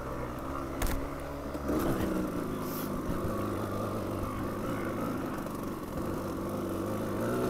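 Dual-sport motorcycle engine running at low, fairly steady trail speed, with a sharp knock about a second in.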